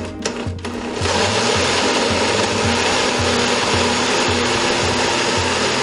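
Oster countertop blender switched on about a second in and running steadily at full speed, its blades pureeing boiled tomatillos, chile and onion into a green salsa.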